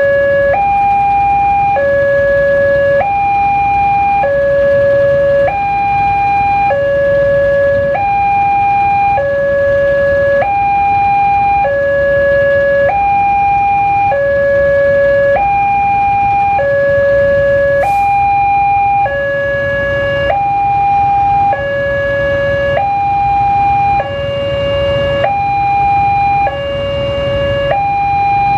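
Electronic level-crossing warning alarm from the crossing signal's loudspeaker, alternating steadily between a high and a lower tone, each held a little over a second. It sounds while the lights flash and the barrier is down, warning that a train is approaching.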